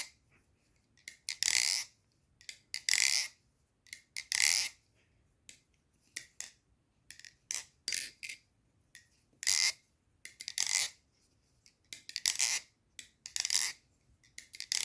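Replica balisong (butterfly knife) being flipped: sharp metallic clacks of the handles and blade knocking together, about ten times at uneven intervals of a second or so. The blade's tap against the handles is still there, which the owner could not tune out.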